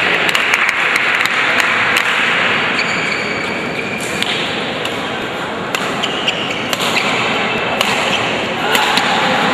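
Badminton play in a hall: scattered sharp taps of rackets striking the shuttlecock and shoes on the court, over a steady murmur of the watching crowd.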